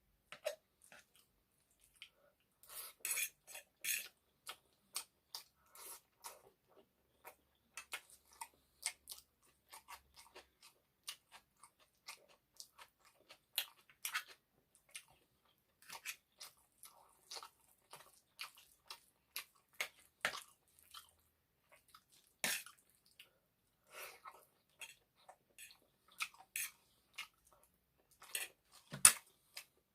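Close-miked chewing and mouth sounds of someone eating egg noodles with chicken curry: irregular wet smacks and clicks, with a louder one near the end.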